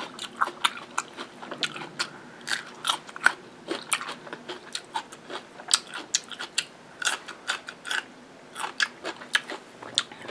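Close-up crunching and chewing of fresh cucumber: a run of sharp, irregular crisp crunches, a few a second.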